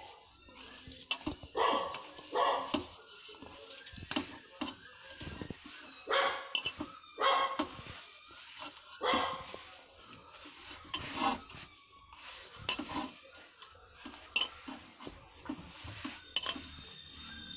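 A dog barking repeatedly, short barks coming at irregular intervals every second or two.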